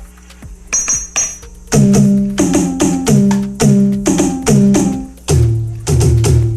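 AMW ED3 electronic drum kit played through a loudspeaker, its pads struck in a quick rhythm. About the first second and a half holds light, clicky hits. After that come loud pitched drum hits, each one dipping slightly in pitch as it starts.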